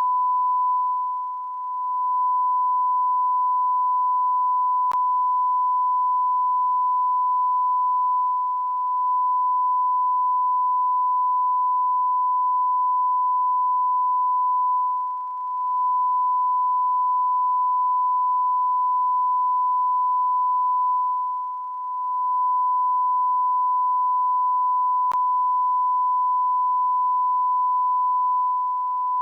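A continuous electronic beep: one steady pure tone at the pitch of a standard test tone or censor bleep. It dips briefly in loudness about every six or seven seconds, and there are two faint clicks.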